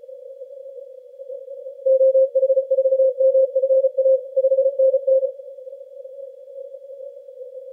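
Morse code (CW) signal on the 80-metre band heard through a Yaesu FTdx10 receiver: a single keyed tone of dots and dashes runs from about two seconds in to about five seconds in, over a narrow hiss of filtered band noise.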